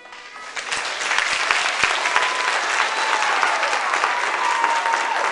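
A small audience applauding as the last chord of the music rings out and fades. The clapping builds to full within about the first second and stays steady.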